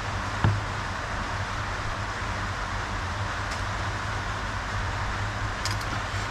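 Steady background hiss with a low hum, a single dull thump about half a second in, and a few faint clicks near the end.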